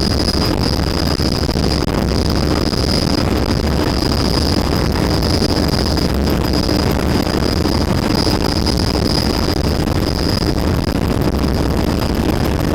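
Helicopter heard from inside the cabin in flight: a loud, steady drone of rotor and engine with a constant high whine above it.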